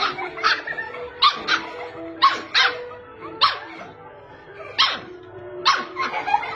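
A puppy barking at a crab in short, sharp barks, about ten of them, some in quick pairs and some alone with gaps of up to a second, over steady background music.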